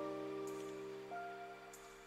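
Background music of slow held chords, with a new note coming in about a second in.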